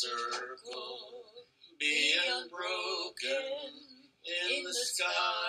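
Singing voice in phrases of a song.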